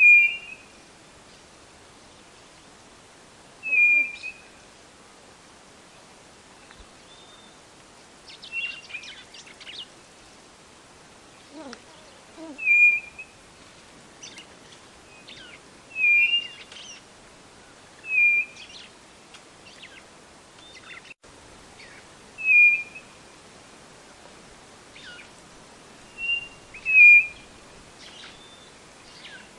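White-bellied nothura (codorna-do-nordeste) calling: a short, high, whistled note repeated about every two to four seconds. Some calls come in quick pairs. Fainter calls of other birds are heard between them.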